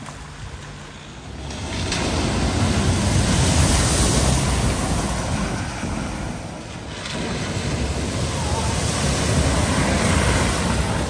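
Cars driving through a flooded ford, their tyres throwing up sheets of spray: two surges of rushing, splashing water, each building and then fading, the first starting about one and a half seconds in and the second about seven seconds in.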